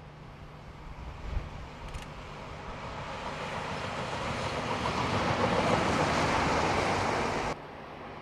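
Locomotive-hauled inspection train passing close by, the running noise of wheels on rail growing steadily louder as it approaches and loudest about five to seven seconds in. It cuts off suddenly near the end, leaving a quieter steady hiss.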